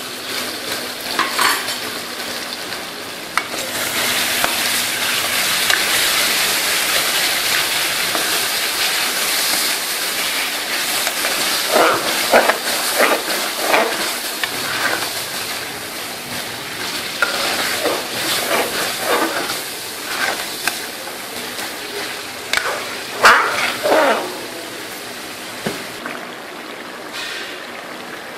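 Mutton curry frying and sizzling in a steel wok after yogurt and mint-coriander chutney are added, while a metal spoon stirs it and scrapes against the pan in short strokes. The sizzle swells a few seconds in.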